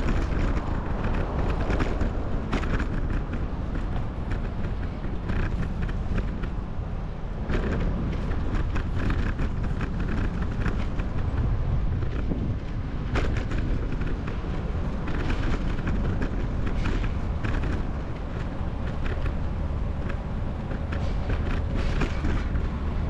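Ride noise from a camera mounted on a moving bicycle: a steady low rumble of wind on the microphone, with frequent clicks and creaks from the bike and mount jolting over the road.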